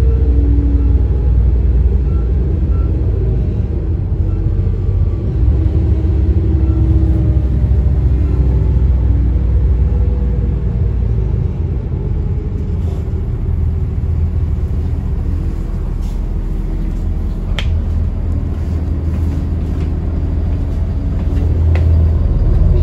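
Diesel engines of an Alstom Coradia LiNT 41 railcar idling at standstill: a steady low rumble that eases a little about halfway through and builds again near the end, with a few faint clicks.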